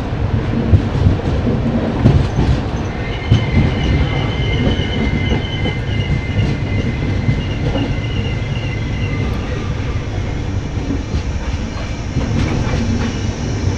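Double-decker express passenger train running on the rails: a steady rumble with wheel clicks over the rail joints. A high wheel squeal runs from about two and a half seconds in to about ten seconds in.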